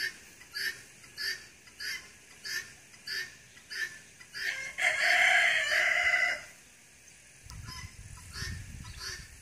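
Guinea fowl calling: a steady series of short, harsh calls, a little over one and a half a second, broken about halfway by one louder call lasting about two seconds. A low rumble comes in near the end.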